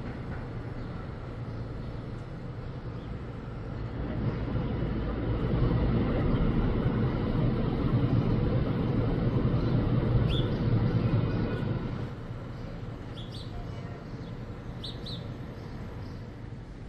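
City waterfront background with a low engine rumble from a passing vehicle. The rumble swells from about four seconds in, holds for several seconds and fades away. A few short bird chirps come near the end.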